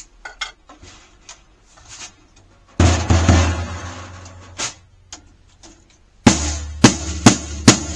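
Beatello 14x8 basswood snare drum struck to check the tension of a head that is still being tightened. Small clicks of a ratcheting drum key come first. About three seconds in a single loud hit rings out with a low, boomy tone, and near the end there is a run of quick strikes, two or three a second.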